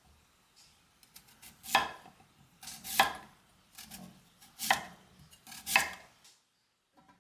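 Knife chopping food on a cutting board: four firm chops about a second apart, with lighter knocks between them.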